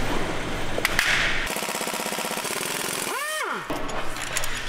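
Pneumatic ratchet rattling in a fast, even buzz as it works bolts on the cylinder head of a BMW X6 M's V8. Just after the halfway point a brief tone rises and then falls in pitch.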